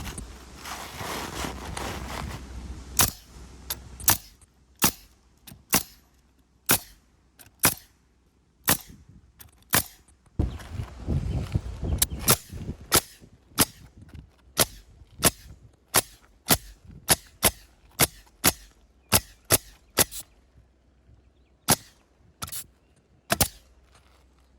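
Roofing nailer firing nails through asphalt shingles, one sharp shot after another, about one to two a second, with a short pause near the end.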